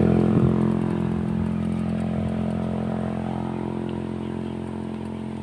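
Motorcycle engine running at a steady pitch, slowly getting quieter.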